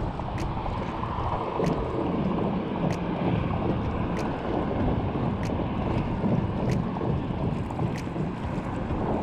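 Wind buffeting the microphone over choppy open water, a rough, gusting rumble, with a faint tick repeating about every second and a quarter.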